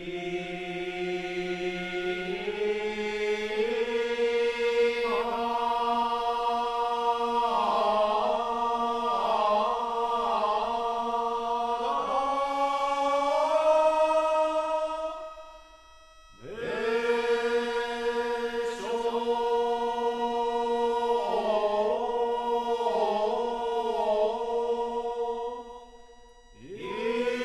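Slow chant sung by low voices in long held phrases, the pitch sliding from note to note. It breaks off briefly about two-thirds of the way through and again just before the end, where a new phrase begins with a rising pitch.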